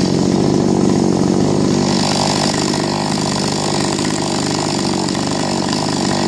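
A 45 cc Chinese two-stroke chainsaw running steadily at high revs.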